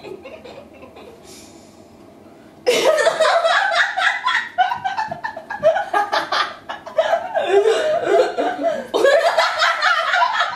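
Two women laughing together. After a quiet lull, loud laughter breaks out suddenly about two and a half seconds in and carries on in quick, repeated peals.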